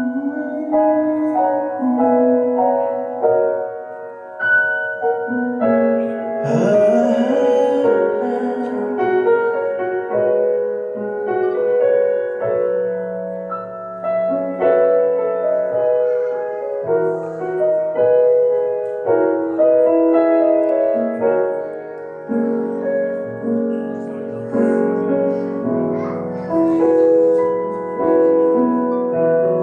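Piano music with long held notes changing every second or two. About six to seven seconds in, a short rising sound with a hiss cuts across it.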